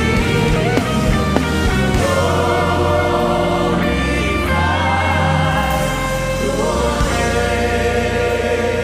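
Live gospel worship music: voices sing long held notes over a band with a full bass, the chords shifting every couple of seconds.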